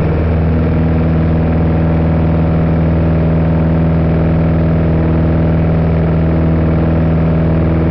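Piper Archer's engine and propeller droning steadily, heard from inside the cabin.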